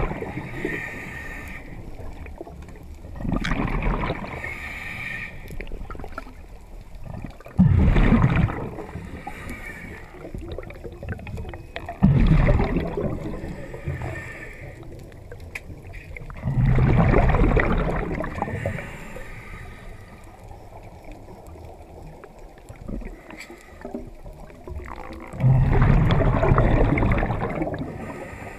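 Underwater breathing of a diver: loud gurgling bursts of exhaled bubbles every four to nine seconds, six times in all, with quieter hissing and water noise between them.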